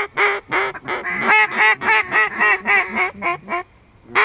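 Duck call blown close by, a rapid run of quacks at about five a second that quickens slightly and stops about three and a half seconds in; a new run of quacks starts right at the end.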